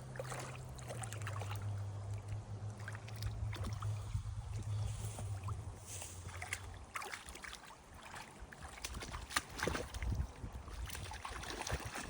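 A motor running with a steady low hum that stops about six and a half seconds in, with scattered clicks and knocks around it.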